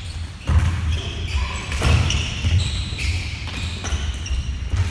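Neo-hockey play on a wooden gym floor: plastic sticks knocking against the ball and the floor in irregular sharp clacks about a second apart, with players' footsteps, echoing in the hall.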